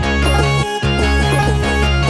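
Background music with a steady bass and quick melodic notes.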